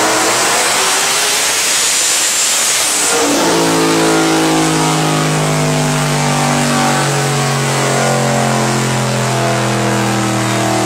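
Saleen S7's twin-turbo V8 running hard on a chassis dyno, with a loud rushing hiss and a faint rising whistle over the engine. About three seconds in it abruptly drops back to a steady, lower engine note that runs on evenly.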